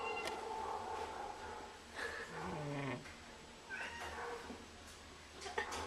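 A sleeping pet snoring, its breaths coming as drawn-out pitched, whistly sounds: a long steady one at the start and one sliding down in pitch about two seconds in, with shorter ones after.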